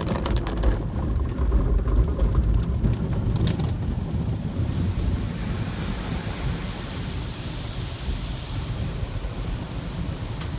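Automatic car wash heard from inside the car: water spray and suds pelting the glass over a heavy low rumble, turning to a brighter, hissier spray from about four seconds in.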